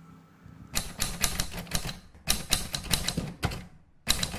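Rapid keystroke clicks of typing, with a mechanical, typewriter-like clatter. They come in quick bursts of about a second each, with short pauses between: two full bursts, and a third starting near the end.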